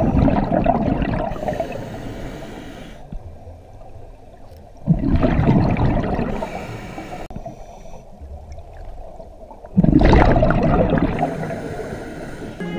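Scuba regulator exhaust heard underwater: a diver's exhaled breath bubbling out in a gurgling rush that starts suddenly and fades over a couple of seconds. One breath is fading at the start, and two more come about five and ten seconds in.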